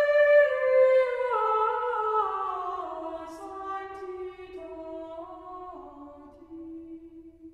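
Background music: a slow single melody of long held notes that steps down in pitch and fades away near the end.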